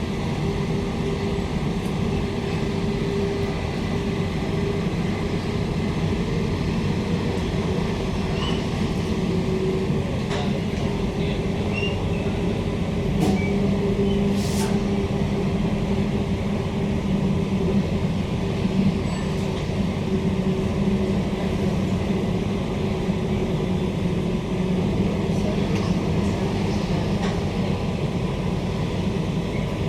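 Steady running noise inside a moving Queensland Rail SMU 260 series electric train: low rumble and wheel-on-rail noise with a constant hum, a few faint clicks, and the low rumble growing a little louder midway.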